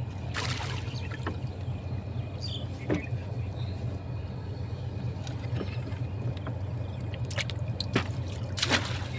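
Water splashing and trickling in a few sudden bursts, about half a second in and again near the end, over a steady low hum.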